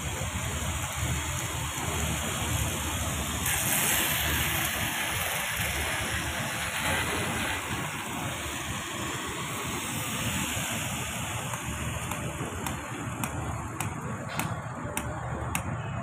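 Steady machinery noise of a building site, with a run of sharp knocks or clicks in the last few seconds.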